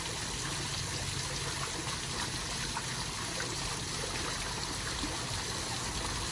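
Small garden koi-pond waterfall splashing steadily into the pond.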